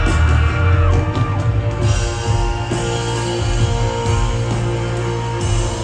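Live band music at a stadium concert, played loud through the sound system: electric guitar over a heavy, steady bass.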